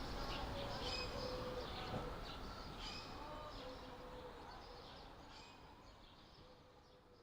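Birds chirping and whistling over a steady background hiss, fading out gradually.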